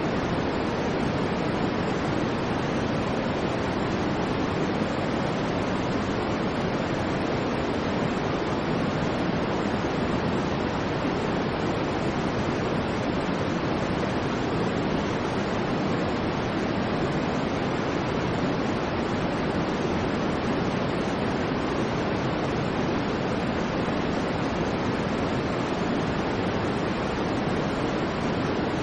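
Continuous electronic white noise: a steady, unchanging hiss, fuller in the low-middle range than at the top.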